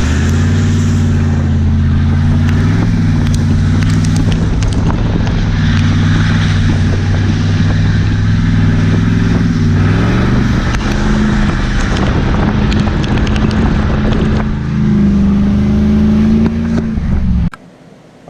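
Truck engine and road noise heard from inside the cab while driving, the engine pitch dipping and rising slightly with speed. The sound cuts off abruptly near the end.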